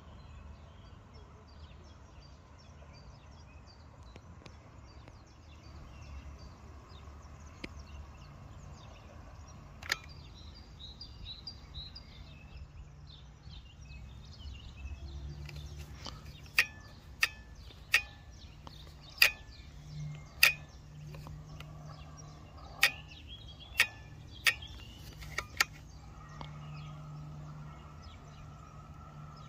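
Outdoor ambience with small birds chirping and a low steady hum, broken in the second half by a run of about ten sharp clicks.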